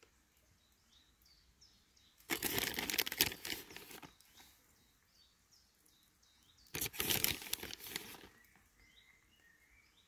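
Plastic packet crinkling in two bursts of a second or two each, as a hand takes grated cheese out to sprinkle over bowls of pasta, with faint bird chirps behind.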